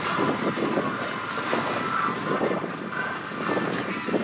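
Steady wind and water noise around a small open fishing boat at sea, with an uneven low rumble and no speech.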